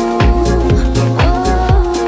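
Background music: an upbeat pop/R&B track with a steady dance beat, regular drum hits and a sustained melody line.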